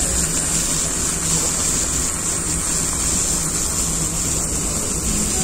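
Sirloin steak, onions and gravy sizzling on a hot iron plate: a steady hiss.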